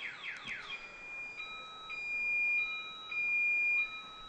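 Electronic alarm running through its tone patterns: a rapid run of falling chirps, about four a second, that stops under a second in, then a steady two-tone alternation, a high tone and a lower one each held about half a second.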